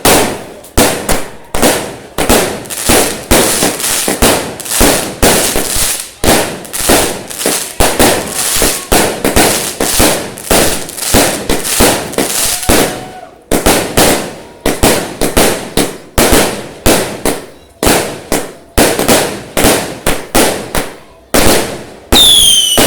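Fireworks going off in a rapid, continuous barrage of bangs, several a second, each fading quickly. Near the end a high whistle that falls slightly in pitch begins.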